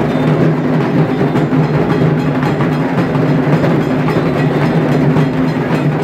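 Around a hundred dhaks, the Bengali barrel drums beaten with sticks, all playing together in one dense, steady din with no break.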